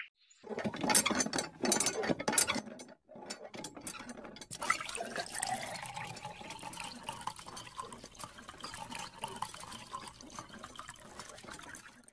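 Water running from a garden hose and splashing over plastic toy trucks and tractors, rinsing off powder paint. It starts about half a second in and breaks off briefly around three seconds.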